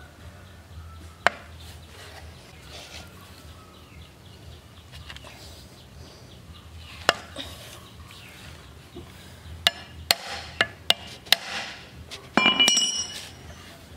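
Screwdriver working at a rusted screw in an electric motor's housing: scattered sharp metal clicks and taps, a quick run of them about ten seconds in, then a short ringing metal scrape near the end.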